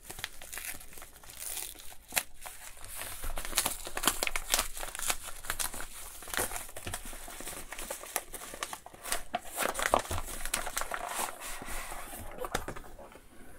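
Yellow mailer package being torn open and crumpled by hand: irregular crinkling and tearing of the wrapping, dying down near the end.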